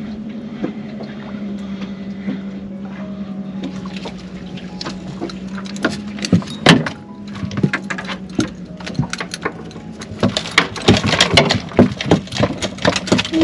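A small motor hums steadily and stops about six seconds in. A sharp knock follows, then a busy run of clattering knocks near the end.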